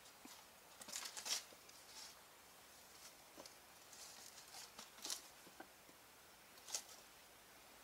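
Faint rustling, crinkling and light scraping of a person handling and laying out gear by hand, in short scattered bursts, the loudest about a second in, with others around five and seven seconds in.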